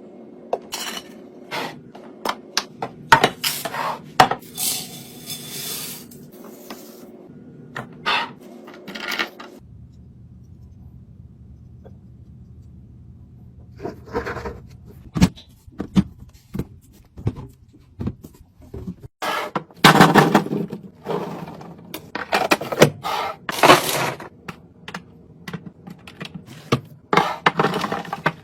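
Food containers and packages being handled and set into a fridge: irregular clicks, knocks and clatter of hard plastic and glass, with a few longer scraping stretches and a quiet pause midway.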